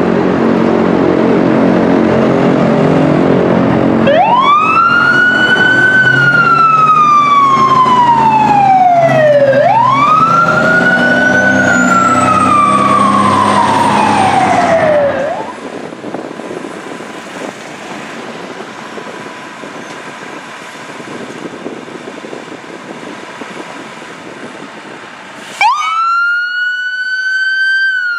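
Sirens of responding Pierce fire trucks. A siren wails up and down twice over a loud, deep steady drone, then cuts off about halfway through. After a quieter stretch, another siren winds up sharply near the end and begins to fall.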